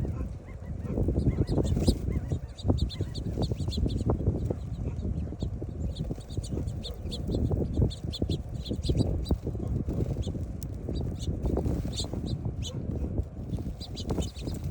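A group of birds calling, with many short, high chirps repeating throughout over a steady low rumble.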